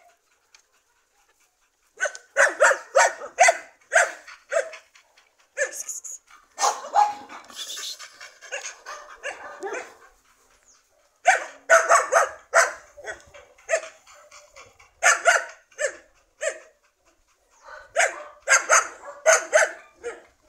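A dog barking in quick runs of sharp barks, about three a second, with pauses of a second or more between the runs.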